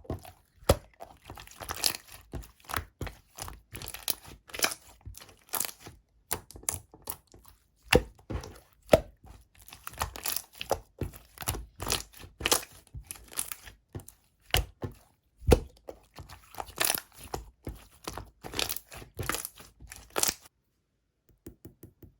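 Clear slime being squished and pressed by hand, giving irregular wet clicks and little pops, two or three a second; they stop near the end.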